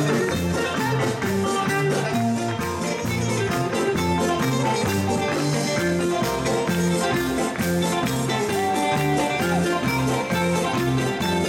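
Greek folk dance music with clarinet, plucked strings and a steady beat, playing without a break.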